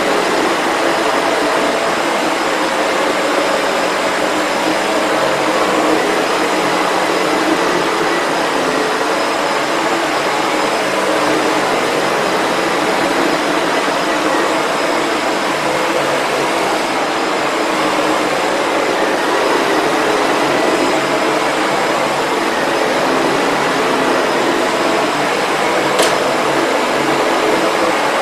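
Sebo Felix upright vacuum cleaner running steadily, its motor and powered brush head pushed back and forth over a high-pile shag rug. A single sharp click comes near the end.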